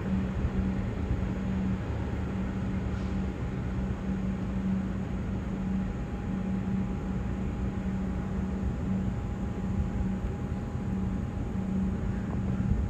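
Steady low drone of a train running, with a faint thin steady tone above it.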